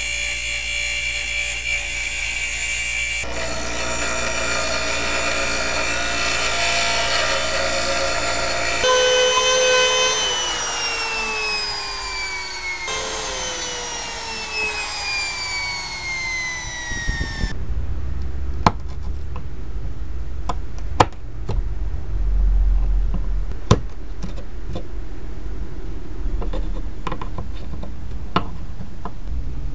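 An electric motor runs at speed with a steady high whine. Twice, a Makita trim router winds down after being switched off, its whine falling steadily in pitch. From a little past halfway, a hand gouge scrapes and chips at a wooden knife handle, with a few sharp knocks over a low rumble.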